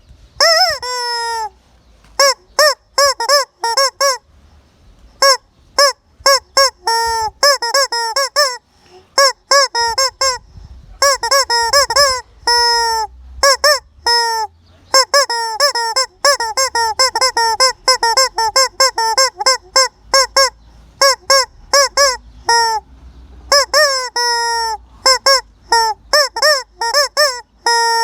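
Chicken calling loudly over and over. The short, pitched calls dip in pitch at the end and come in quick runs, with a few longer drawn-out calls among them.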